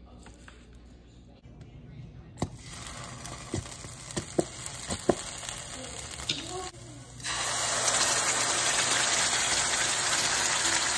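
Food sizzling in a hot nonstick frying pan, with a few sharp clicks. About seven seconds in, a much louder, steady sizzle starts as a creamy white sauce is poured into the hot pan.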